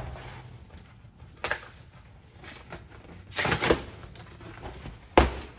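Cardboard boxes of clothing being handled and shifted: irregular rustling and scuffing, with a sharp knock about five seconds in, the loudest sound.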